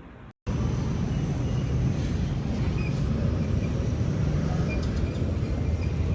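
Steady low rumble, like a moving vehicle, starting after a brief dropout at the very start.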